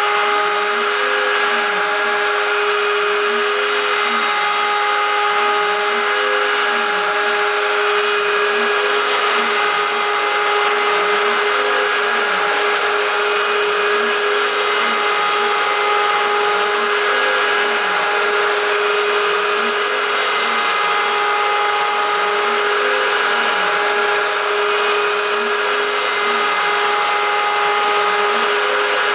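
CNC router spindle milling 6061 aluminium with an end mill: a steady high whine over the cutting noise. Underneath, a fainter tone rises and falls about every two seconds.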